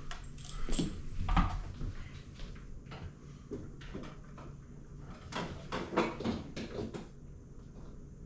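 Handling noise: scattered clicks, knocks and rustles, with louder bumps about a second in and again around six seconds in.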